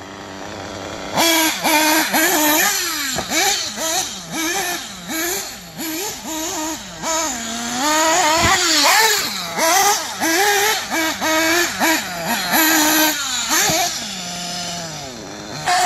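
Mugen MBX7R 1/8-scale nitro buggy's glow engine revving up and down over and over as it is driven, with one longer climbing rev about halfway through.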